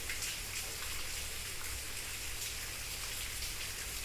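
Steady background hiss with faint, irregular crackling and a low hum underneath.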